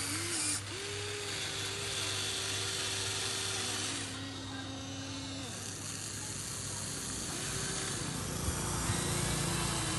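Electric motors and plastic gearboxes of a radio-controlled toy excavator whining as it digs and swings its arm in sand; the whine holds a steady pitch, then jumps to a new pitch each time a different function starts or stops.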